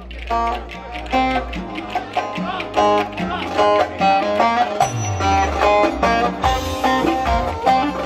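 Ankara oyun havası, Turkish folk dance music: a fast melody of quick short notes, with a low sliding note about five seconds in and a regular low drum beat coming in soon after.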